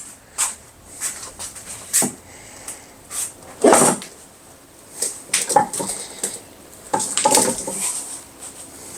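A dog making several short barks and whines, the loudest about four seconds in, among scattered clicks and knocks from handling a loaded plastic rolling toolbox.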